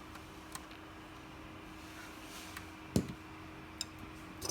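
Small clicks and one sharper knock about three seconds in, from hands working at a laptop's optical drive, over a faint steady hum.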